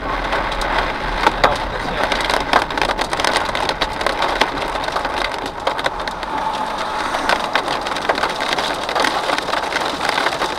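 Hail hitting the roof and windshield of a moving car, a dense run of sharp clicks and knocks over rain and road noise, with a few louder strikes.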